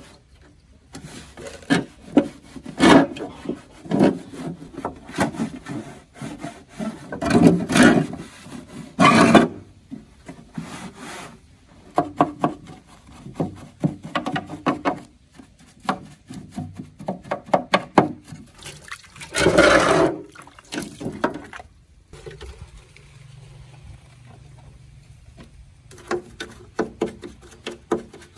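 Irregular rubbing and scraping strokes of hand work on a hard surface, with a quieter pause about two-thirds of the way through.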